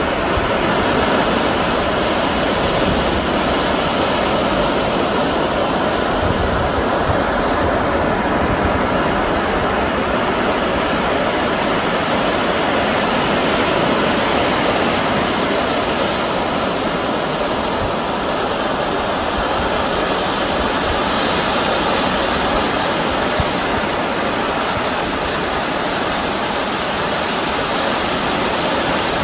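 Steady rushing noise of surf breaking along the shore, with no pauses or single events standing out.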